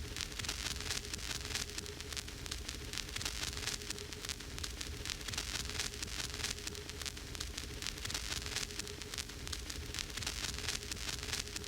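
Vinyl record spinning with no music on it: a steady surface hiss thick with fine crackles and pops, over low rumble and a faint steady hum.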